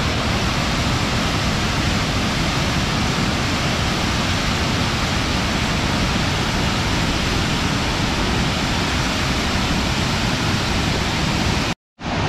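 Ruby Falls, a cascading waterfall, rushing steadily and loudly. The sound cuts out completely for a moment near the end.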